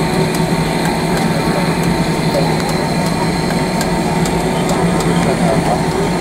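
Cabin noise inside an Airbus A319 taxiing on the ground: the jet engines run at low power as a steady hum and rush, with faint irregular clicks over it.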